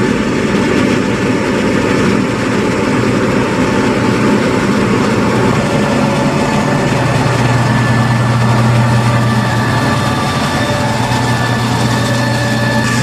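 Fendt 930 Vario tractor's six-cylinder diesel running steadily under load as it pulls a slurry tanker and injector past. A deeper, stronger hum comes in about halfway, and a faint high whine joins near the end.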